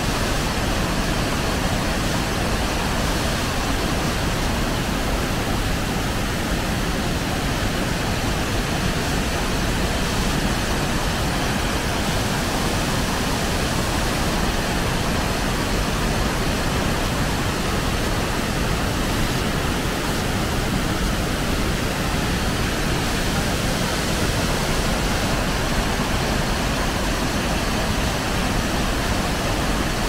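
Shifen Waterfall, a wide ledge waterfall on the Keelung River, pouring steadily into its deep pool: a loud, even rush of falling water that does not change.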